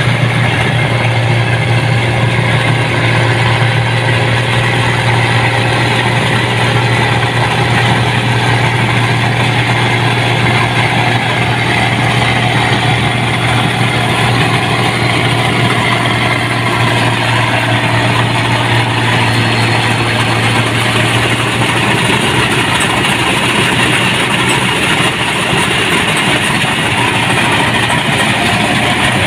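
Rice combine harvester's diesel engine running steadily as the machine cuts paddy, a loud, even drone with a deep constant hum.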